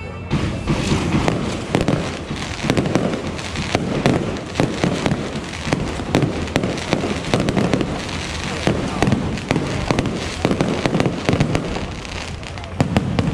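Aerial fireworks shells bursting overhead in quick succession: many bangs close together, with a short lull and then a loud burst near the end.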